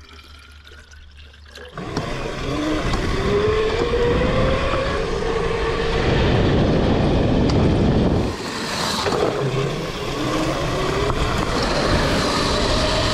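Dirt bike engines running as the bikes ride along a gravel road, setting in loud after about two seconds. The engine pitch climbs as they accelerate, drops briefly past the middle, then climbs again.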